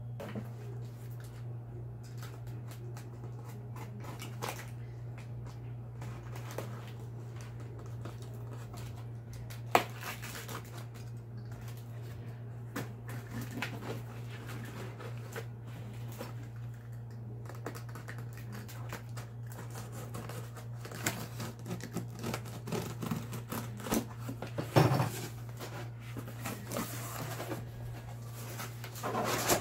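Knife slitting the packing tape on a cardboard shipping box, then the cardboard flaps being pulled open: irregular scraping, crinkling and tearing, with a few louder knocks about ten seconds in and near the end. A steady low hum runs underneath.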